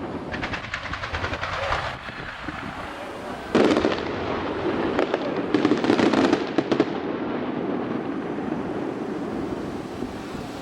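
Fireworks going off: a run of rapid crackling in the first two seconds, a sudden loud bang about three and a half seconds in, then another burst of rapid crackling around six seconds, after which it settles to a steady background hiss.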